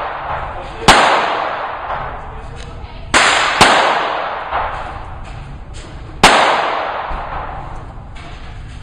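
Glock 17 9mm pistol being fired, four shots unevenly spaced: one about a second in, a quick pair around three and a half seconds, and one more past six seconds. Each shot rings out in a long, echoing decay, with a few fainter pops between.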